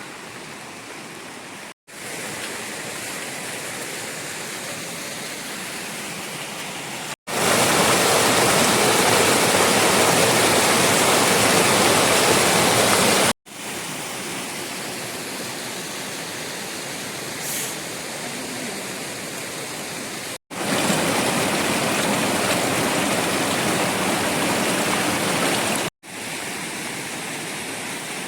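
Steady rushing noise of heavy rain and running water. It is heard across several clips cut together: at each cut the sound drops out for an instant and returns at a different level. The loudest stretch runs from about 7 to 13 seconds in.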